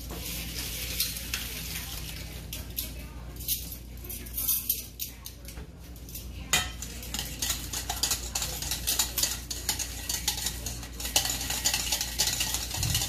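Wire whisk stirring a runny orange sauce in a stainless steel bowl, its wires clicking and scraping against the metal, most busily in the second half.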